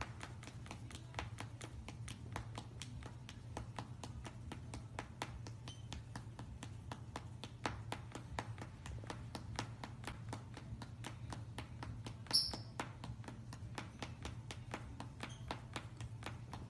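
Light, irregular clicking or tapping, several clicks a second, over a steady low hum, with one brief high squeak about twelve seconds in.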